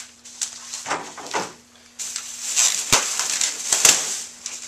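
Plastic-wrapped chair parts crinkling and rustling as they are handled and set down on a folding table, with a couple of sharp knocks in the second half.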